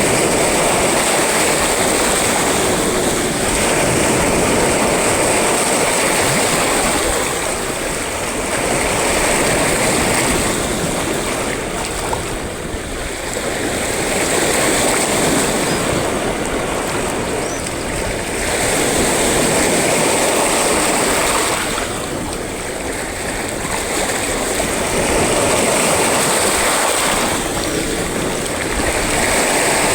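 Sea waves breaking, a loud continuous wash that swells and eases about every five seconds.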